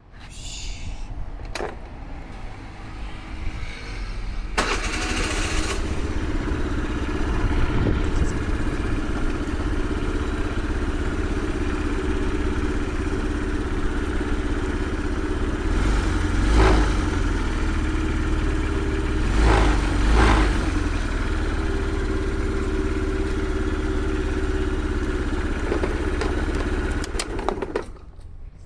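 Motorcycle engine idling steadily, with two short throttle blips past the middle.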